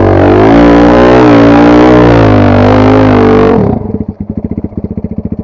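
Enduro motorcycle engine running loud at a steady, slightly wavering pitch. About three and a half seconds in it drops abruptly to a slow idle of separate firing pulses, then cuts off at the end.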